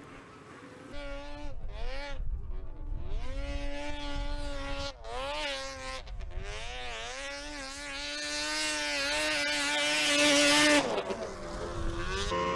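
Polaris 600 two-stroke snowmobile engine revving hard on a hillclimb run, its pitch rising and falling again and again as the throttle is worked over the bumps. It then holds at a steady high pitch for a few seconds before cutting back about eleven seconds in.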